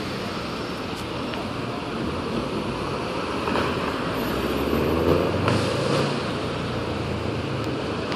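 Street traffic noise: a large emergency-service truck and cars running through an intersection. A low engine drone grows louder about five seconds in.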